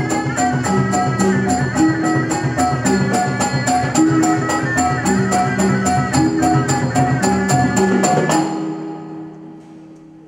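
Traditional wayang kulit ensemble music: a high melody over quick, steady cymbal strokes and low drum and gong notes. It stops suddenly about eight seconds in, leaving a low ringing note that dies away.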